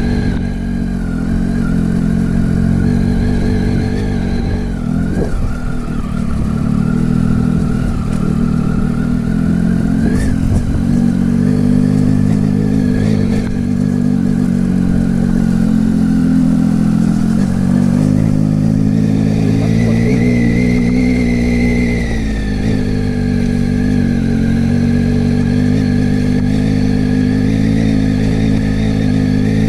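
Motorcycle engine running steadily under way, its pitch rising and falling a little with the throttle, most noticeably about two-thirds of the way through.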